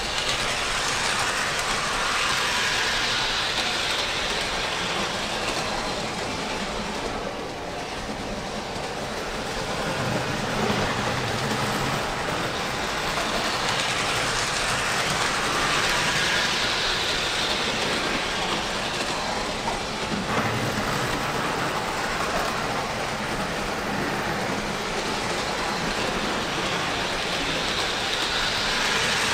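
O-scale model hi-rail truck and railroad speeder rolling over three-rail track, with a steady wheel clatter that swells and fades as they pass, about three times.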